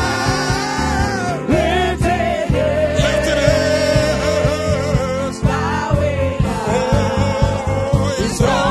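Live gospel worship music: singers holding wavering sung lines over keyboard and bass, with a quick steady beat coming in about halfway through.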